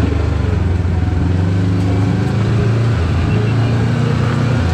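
Kawasaki KRX4 1000 side-by-side's parallel-twin engine running steadily as the machine drives along, a low drone with only slight changes in pitch.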